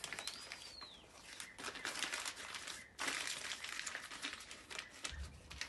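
Double-layer aluminium foil crinkling and rustling as it is handled around a rack of pork ribs, in uneven stretches with a short break about three seconds in.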